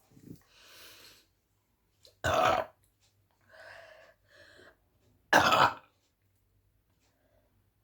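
Two loud burps from a woman, set off by gulping carbonated Appy Fizz, about three seconds apart and each about half a second long.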